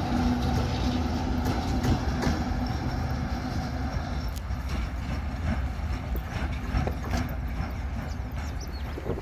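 ChME3M diesel shunting locomotive running light and moving away: a steady low engine hum that fades, with scattered clicks from the wheels on the rails.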